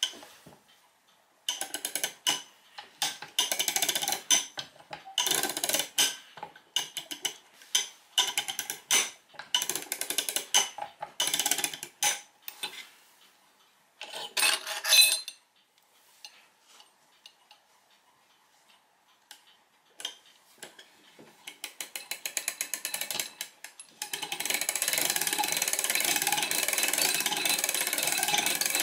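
Ratchet of a homemade plywood clock mainspring winder clicking as the mainspring is wound up, in bursts with short pauses and one louder burst about halfway. After a near-quiet stretch, steady fast clicking runs through the last few seconds.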